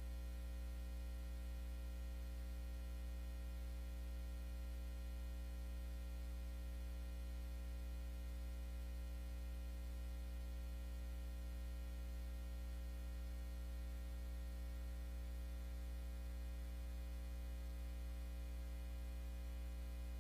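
Steady low electrical hum with a faint buzz of higher overtones, unchanging: mains hum in the audio line, with no music or voice.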